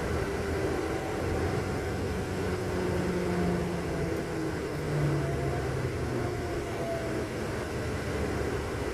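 Motor vehicle running: a steady low rumble with faint engine tones that shift in pitch now and then.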